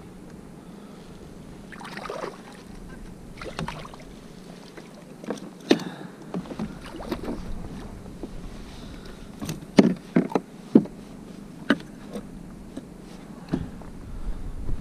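Scattered knocks, clicks and clunks on the plastic deck of a sit-on-top kayak as a just-landed fish and the fishing tackle are handled. The knocks come in clusters, the loudest about ten seconds in.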